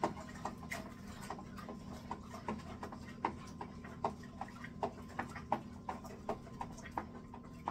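Long spoon stirring beer-kit wort in a white plastic fermenting bucket, knocking against the bucket's sides in a steady rhythm of about two to three knocks a second.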